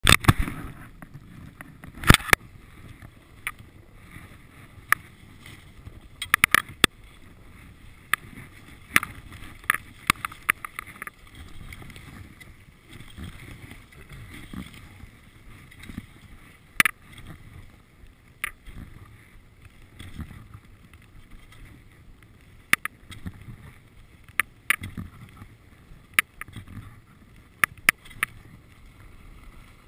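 Skis sliding over packed snow, a steady low rumble and hiss, broken by many irregular sharp clicks and knocks.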